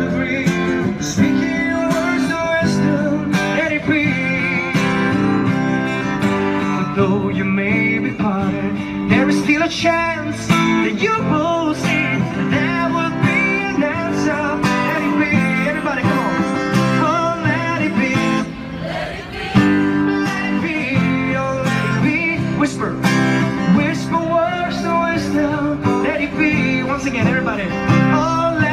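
Acoustic guitar played as steady chordal accompaniment, with a wavering, wordless vocal melody over it. The music dips briefly about two-thirds of the way through.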